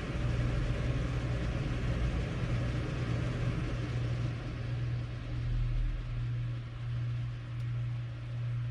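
Steady low mechanical hum with a rumble beneath, swelling and fading about once a second in the second half.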